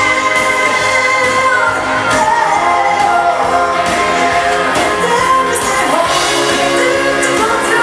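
Swedish dansband playing a bugg dance tune live, with a singer's vocal over the band.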